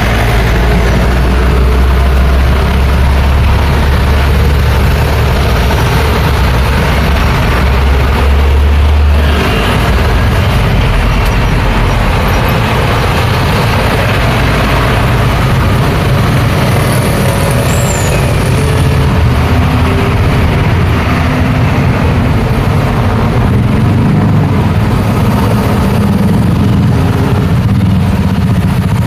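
Busy road traffic of trucks, buses, cars and motorcycles passing close by. A heavy vehicle's deep engine rumble dominates for the first nine seconds or so, then drops away suddenly, leaving steady mixed traffic noise.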